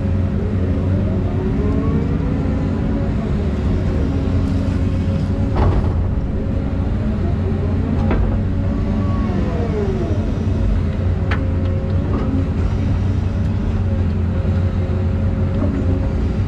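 Volvo EC220E excavator working: a steady diesel engine drone with a hydraulic whine that rises and falls as the machine moves. There are three sharp knocks, roughly six, eight and eleven seconds in.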